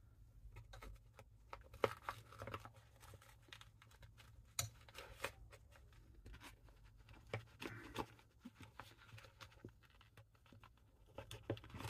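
Faint handling sounds: scattered small clicks and short rustles as sockets are taken out of a nylon tool bag.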